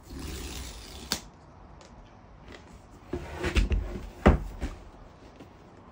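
Paper tear strip ripped off a cardboard MacBook Pro box: about a second of tearing rustle ending in a sharp snap. Then the box is handled and its lid worked loose, with several knocks and thumps, the loudest a little past four seconds in.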